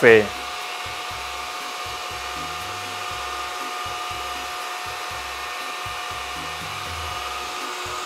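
Hyundai VC01R cordless stick vacuum cleaner running steadily, a whirring motor with a constant whine, as its brush head is pushed back and forth over a laminate floor picking up spilled coffee grounds.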